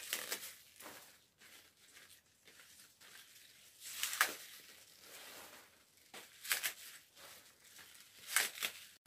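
Leafy pancar (chard-type) greens rustling and tearing as they are handled and sorted by hand, in several short swishes.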